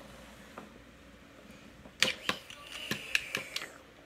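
Small hard plastic toys being handled on a wooden tabletop: a quick run of sharp clicks and knocks starting about halfway through, after a quieter first half with one faint click.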